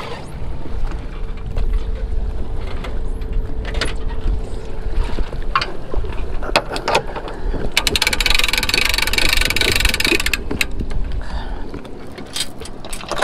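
Metal clinks and knocks of a safety chain and hook being fastened at a boat trailer's bow stand, then about two and a half seconds of rapid ratcheting from the hand-crank trailer winch as it is cranked in. Wind rumbles on the microphone throughout.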